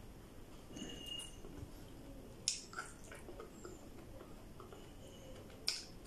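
Quiet eating sounds of someone chewing and biting raw okra, with two short sharp snaps, about two and a half seconds in and again near the end.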